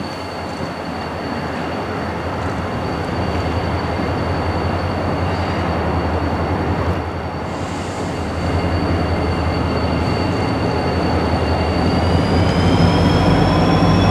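Norfolk Southern GP40-2 diesel-electric locomotive and its train approaching, the engine and wheel noise growing steadily louder. A steady high whine runs over it and rises in pitch about twelve seconds in, as the engine's low drone strengthens.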